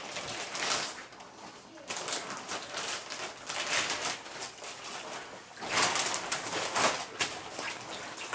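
Water sloshing and gurgling in an inflatable birth pool that has a hose in it, in repeated surges of a second or less.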